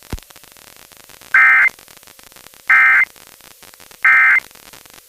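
Emergency Alert System end-of-message signal: three identical short bursts of SAME data tones (the 'NNNN' code), each a harsh buzzy warble lasting about a third of a second, spaced about 1.3 seconds apart. They mark the end of the alert.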